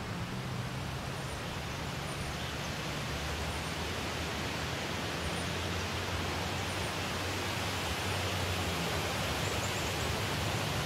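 Steady outdoor rushing noise with a low hum beneath it, growing slightly louder toward the end.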